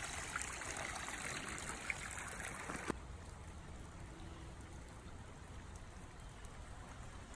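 Snowmelt and rainwater running and trickling out of a drainage trench dug through snow onto pavement, a steady rushing trickle that drops noticeably quieter about three seconds in.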